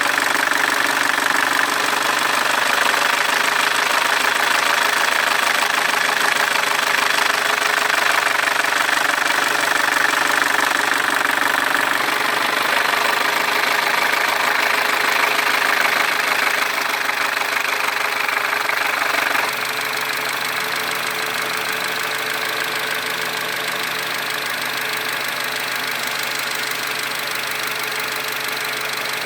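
Audi EA888 gen3 CJE 1.8 TFSI four-cylinder engine running with an extraneous mechanical noise, the fault under diagnosis. It drops a little in level about two-thirds of the way through.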